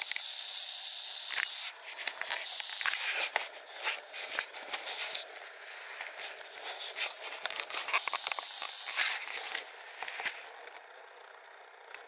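Irregular rustling and crackling of dry leaves and twigs over a hiss, quieter in the last couple of seconds.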